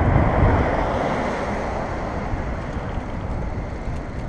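Wind buffeting the microphone of a camera riding on a moving bicycle: a steady rush of noise that gradually eases off.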